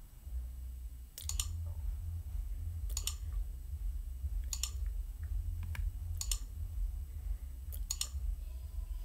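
Sharp clicks, mostly in quick pairs, repeating about every second and a half over a low steady rumble.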